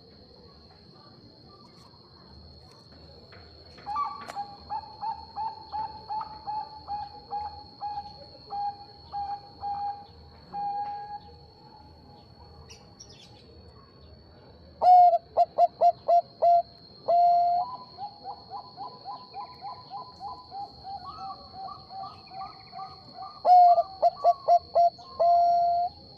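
Zebra dove (perkutut) song: runs of rapid, repeated staccato coo notes. A fainter run begins about four seconds in, and much louder runs follow from about fifteen seconds in.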